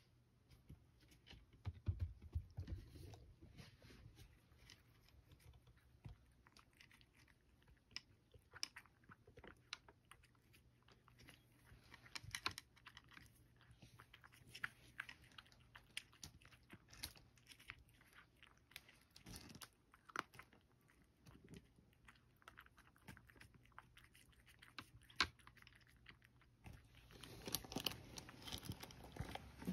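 A cat chewing dry kibble, with irregular small crunches and clicks that grow busier and louder near the end. A few low thumps come about two seconds in.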